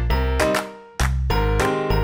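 Background music: struck notes that ring and fade, over a low bass line.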